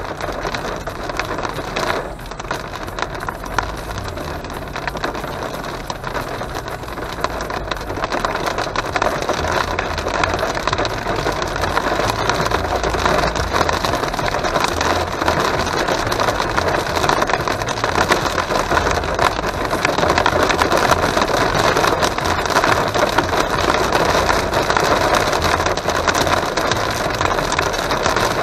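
Heavy rain and hail drumming on a car's roof and windshield, heard from inside the cabin as a dense clatter of small impacts that grows louder toward the end, over the low rumble of the car driving on the motorway.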